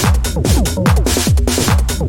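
Techno track: a driving, percussive drum pattern of pitch-dropping drum hits and bright noisy hi-hat-like hits, repeating about every two seconds.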